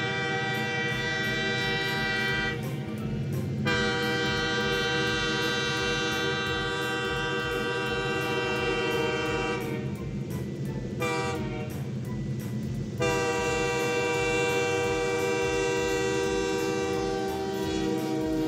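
Train horn blowing in long held blasts of several seconds each, broken twice by short pauses, over the steady low rumble of a running train.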